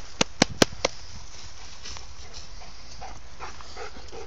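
A quick run of four sharp clicks in the first second, then a dog panting in a quick, even rhythm as it comes up close near the end.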